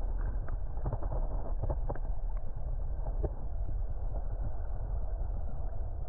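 Muffled underwater sound of a creek's current, picked up by a submerged camera: a steady low rumble with scattered small clicks.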